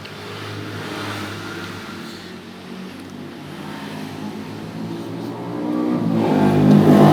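A motor vehicle engine running, growing louder toward the end as it comes closer.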